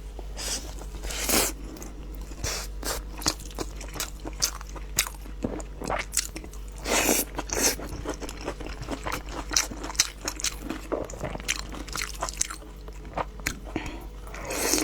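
A person biting and chewing food close to the microphone, with many short crunchy clicks.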